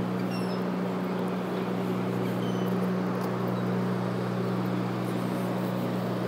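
Steady low mechanical hum, even in pitch, with a few faint short high chirps over it.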